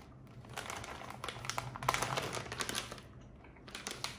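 Plastic candy wrapper crinkling as it is handled and opened, in bursts of rustling with a short pause about three seconds in.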